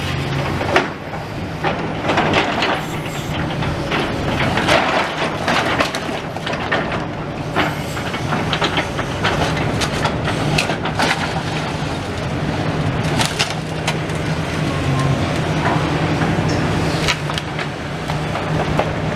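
Heavy demolition machinery working on the rubble of a building: a steady diesel engine drone under frequent sharp cracks and crunches of breaking concrete and debris.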